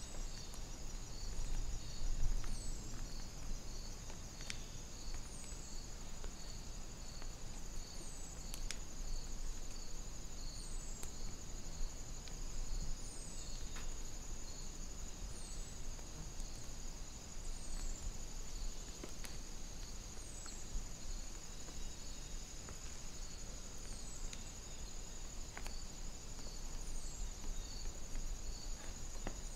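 Insects trilling in a steady, high continuous chorus with a pulsing texture, over a low steady rumble. A short, high falling chirp repeats about every two and a half seconds, and there are a few faint ticks.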